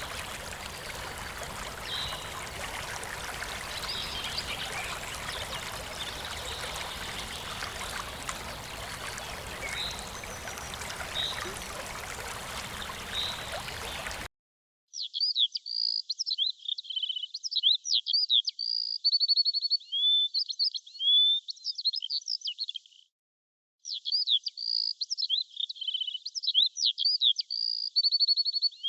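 Running water of a stream, with a few bird chirps over it. About halfway the water cuts off abruptly. Clear songbird song follows: rapid varied chirps, whistled notes and trills, with a short break near the end before the same song starts again.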